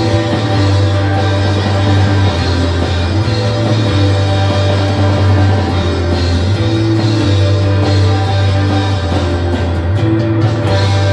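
Rock trio playing live: electric guitar, bass guitar and drums in an instrumental passage, with held bass notes under steady drum strokes and no singing.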